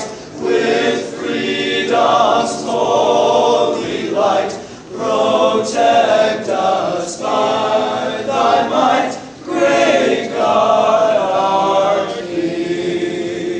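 Choir of young men singing a slow song in long sustained notes, closing on a long held note near the end.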